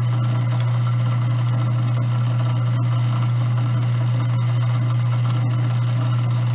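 Grindmaster 890-series commercial coffee grinder running with a steady low motor hum and no chirping: the burrs are set just short of rubbing during calibration.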